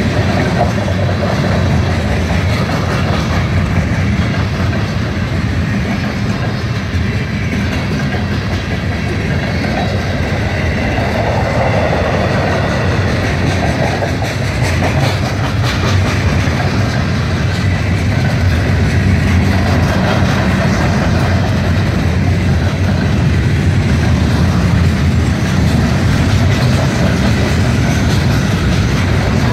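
CN freight train's cars rolling past close by, a steady rumble with the clatter of wheels over the rails.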